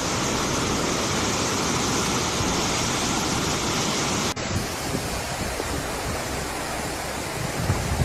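Fast-flowing floodwater rushing and churning in a steady roar. A short break a little over four seconds in, then the rushing water goes on.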